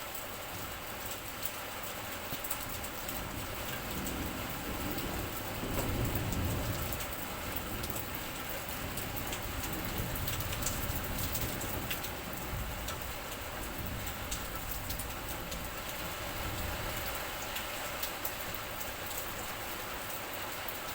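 Steady heavy rain falling, an even hiss with many sharp drop hits ticking through it. A low rumble swells underneath about four seconds in and eases off a few seconds later.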